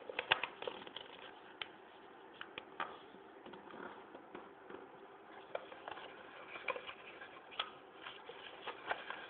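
Paper being folded and creased by hand: faint, irregular crinkles and clicks as the sheet is pressed and handled.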